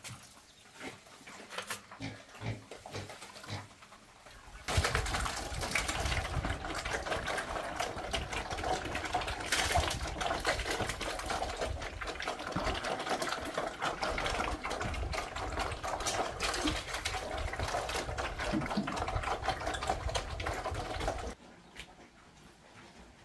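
A small motor running steadily for about sixteen seconds, switched on and off abruptly, after a few faint clicks.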